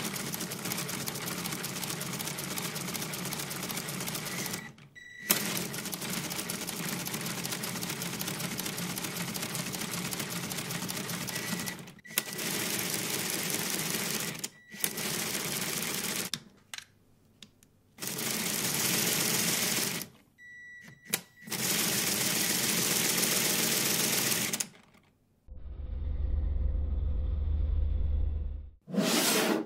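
Lego pneumatic engine running fast on compressed air, a rapid clatter of valves and puffing exhaust air that stops and starts again several times as the air valve is switched. Near the end a different, low rumbling sound takes over.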